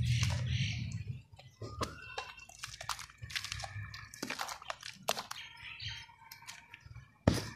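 Hands squeezing and kneading wet sand-cement mud in a tub of muddy water: wet squelches and little crackles, with a low sloshing swish in the first second. There is a single sharp click near the end.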